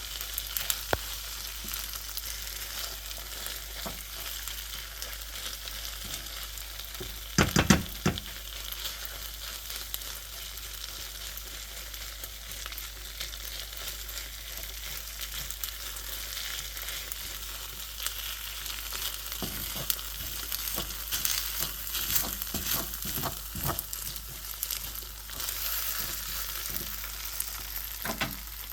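Fried rice in tteokbokki sauce sizzling in a pan, stirred with a utensil that scrapes and knocks against the pan. The loudest knocks come about seven and a half seconds in, with more frequent ones in the second half.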